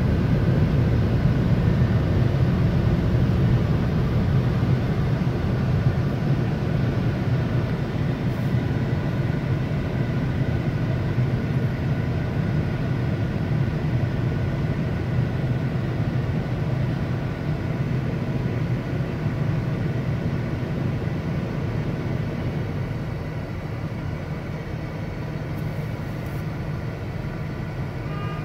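Car wash air-dryer blowers running, a loud, steady rush of air heard from inside the car's cabin, easing slightly near the end.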